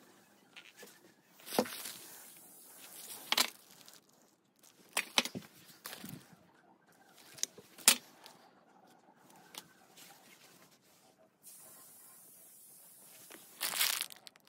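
Plastic packaging crinkling and rustling in short bursts as bagged spare parts are handled, with several sharp clicks and light knocks of the parts against each other, the loudest about eight seconds in.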